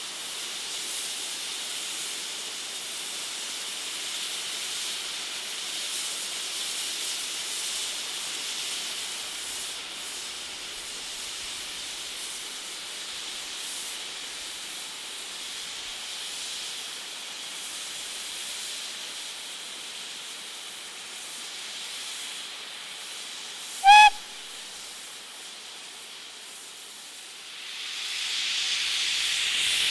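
A BR Standard tank steam locomotive's safety valves blowing off, a steady hiss of escaping steam. About 24 seconds in comes one short, sharp toot of the engine's whistle, and near the end the hiss swells louder as steam starts to blow from the cylinder drain cocks.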